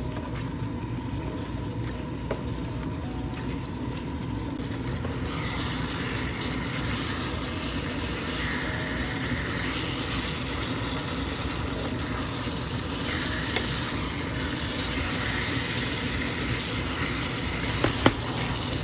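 Chicken pieces sizzling in honey-sesame sauce in a frying pan while a wooden spatula stirs them. The sizzle grows louder about five seconds in and swells and eases with the stirring over a steady low hum, and there is one sharp click near the end.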